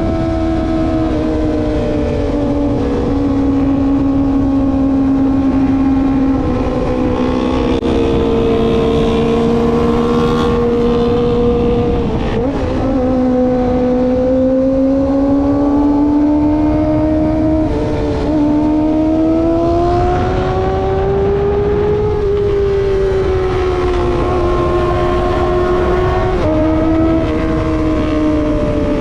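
Kawasaki ZX25R's 250 cc inline-four engine running high in the revs while cruising, its pitch drifting slowly up and down. Its pitch steps abruptly a few times, about twelve seconds in and again later, as gears change. A steady low rush runs underneath.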